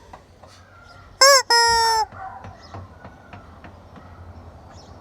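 Hen giving a loud two-part squawk about a second in: a short note that rises and falls, then a longer held note. Faint clicks and scratching sounds come before and after it.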